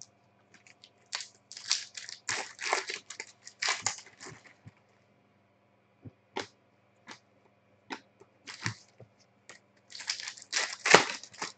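Trading-card pack wrappers crinkling and tearing, and cards being slid and flipped by hand, in scattered rustling bursts; the loudest cluster comes about ten to eleven seconds in.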